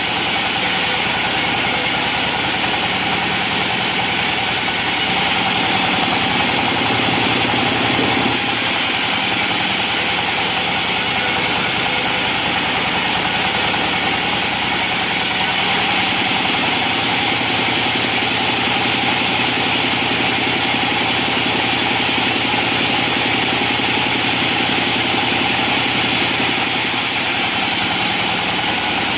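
Engine of a small 'benso' sawmill running steadily, with a slight change in tone about eight seconds in.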